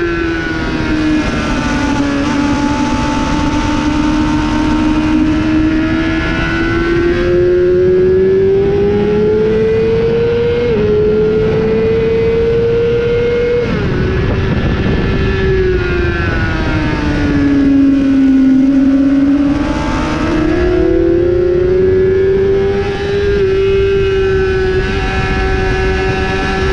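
Onboard sound of a Honda 600 supersport motorcycle's inline-four engine at racing revs, over heavy wind rush. The engine note climbs, drops sharply at two gear changes around ten and fourteen seconds in, sinks low as the bike slows for a corner, then climbs again under acceleration.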